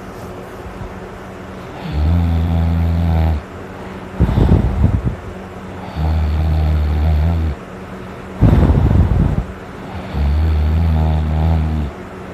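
Loud snoring like a buzz saw, in a steady cycle about every four seconds: a low buzzing snore of about a second and a half, then a short, loud rush of breath. Three such cycles.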